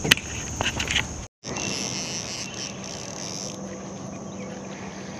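Steady high-pitched buzzing of summer insects, with a few sharp clicks in the first second and a brief break in the sound a little over a second in.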